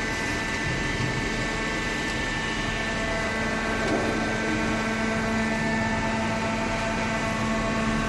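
Hydraulic cardboard baler running: a steady drone of its electric motor and hydraulic pump, with a constant hum and several steady whining tones.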